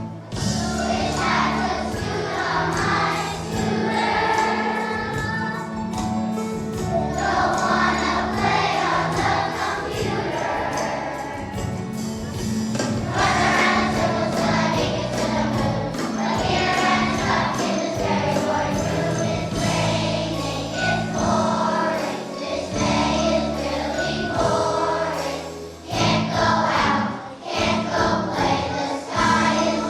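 Children's choir singing a song over instrumental accompaniment with a steady beat.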